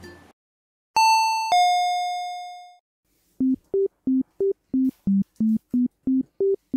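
A two-note ding-dong chime like a doorbell, high note then lower, ringing away over about two seconds. It is followed by a quick run of short low beeps, about three a second, stepping between a few pitches like a simple electronic tune.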